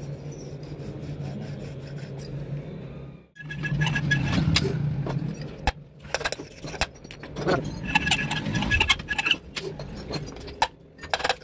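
Metal tools clinking and tapping against a diesel engine cylinder head during valve-guide work, many sharp clicks, some with a short metallic ring. A steady low hum runs under the first few seconds and breaks off about three seconds in.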